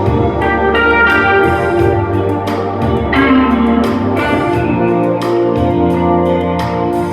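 Recorded music played back through horn-loaded open-baffle loudspeakers with Matsushita full-range drivers: plucked notes with sharp attacks over sustained chords.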